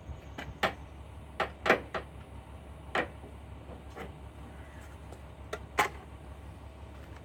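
A series of sharp, irregular clicks and knocks, about seven over several seconds, from plastic headlight and trim parts being handled and worked loose, over a steady low hum.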